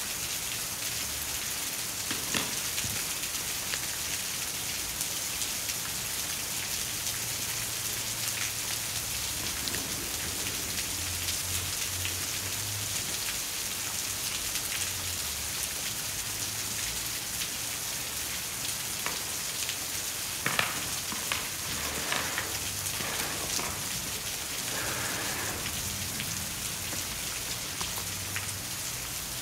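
Steady rain falling, an even hiss throughout, with a few small clicks and taps of plastic pens and stamps being handled, the sharpest about two-thirds of the way through.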